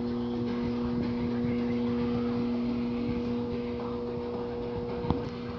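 Steady machine hum with a noisy rush underneath, holding an even pitch, with a single short click near the end.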